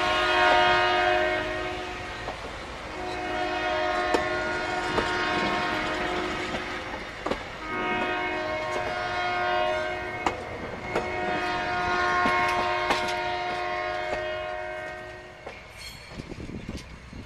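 Diesel locomotive air horn sounding a steady chord in four long blasts as the stainless-steel Zephyr passenger cars roll past, their wheels clicking over the rail joints. The horn stops about three seconds before the end.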